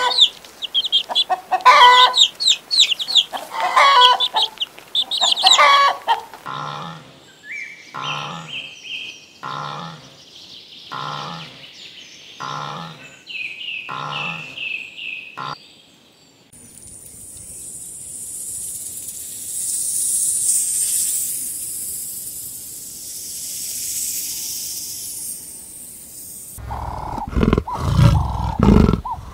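A hen clucking among her peeping chicks for about six seconds, then a run of about six evenly spaced calls roughly a second and a half apart, then a steady high hiss for about ten seconds. About three seconds before the end come loud low growls of a big cat.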